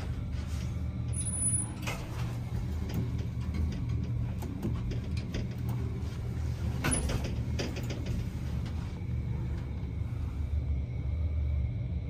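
Hitachi passenger lift car travelling down, with a steady low hum of the running car and scattered clicks and knocks.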